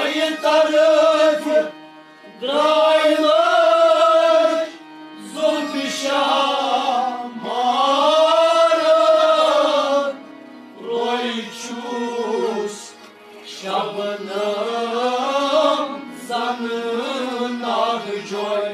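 Men singing a Kashmiri Sufi kalam in long, drawn-out phrases with short breaks between them, over a steady harmonium accompaniment.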